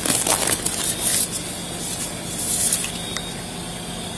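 Rustling and scraping right against a police body camera's microphone: a scratchy hiss lasting about a second at the start and a shorter burst a little past the two-second mark, over a steady low hum.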